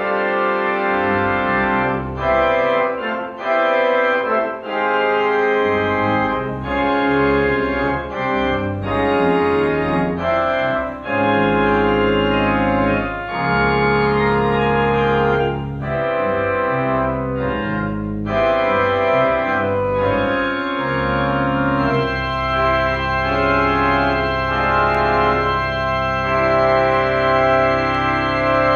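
Church organ played with manuals and pedals: a chordal passage over changing deep pedal notes. About three-quarters of the way through, it settles on a sustained chord over a held low pedal note.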